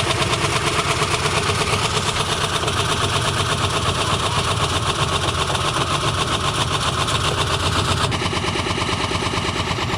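Stripped-out washing machine running at full speed with a brick thrown into its spinning drum, giving a loud, steady mechanical clatter with fast, regular knocking.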